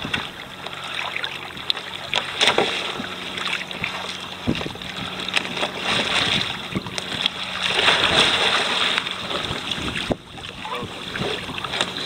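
Sea water splashing and sloshing as a swimmer clambers from the water back onto a sit-on-top kayak in a self-rescue, with a louder stretch of sloshing a little after halfway.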